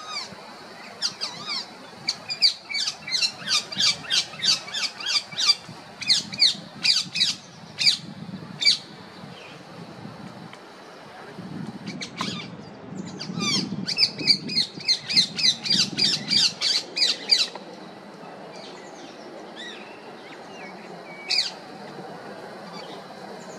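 Female rose-ringed parakeet calling: two long runs of rapid, sharp squawks, about two a second, then a single call near the end.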